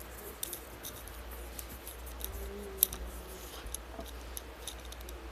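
Light, irregular clicks and ticks of a plastic fingerboard being handled close to the microphone, with one sharper click nearly three seconds in.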